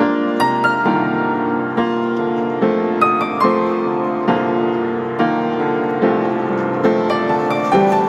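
Background piano music, with notes struck every half second or so.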